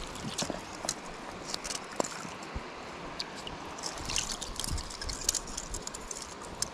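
Shallow creek water trickling and lapping close by, with scattered small splashes and drips.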